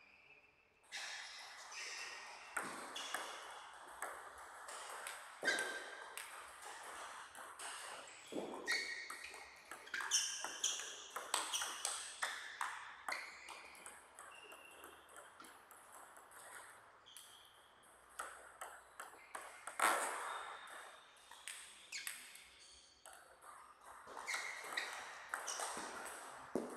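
Table tennis rallies: the plastic ball clicks off the players' rubber-covered paddles and bounces on the table in quick runs of sharp taps, with short lulls between strokes and points.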